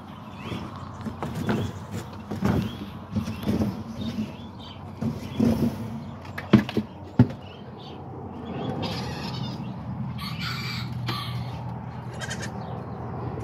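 Goats bleating in short calls about once a second, with two sharp knocks about six and a half and seven seconds in. A steady low hum takes over for the rest.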